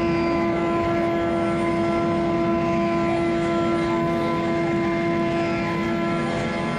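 Steady running noise of a Shinkansen bullet train heard from inside the carriage: an even rumble with a constant hum of several steady tones.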